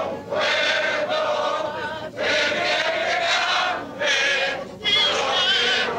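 A crowd singing together in unison, in sung phrases of one to two seconds with short breaks between them.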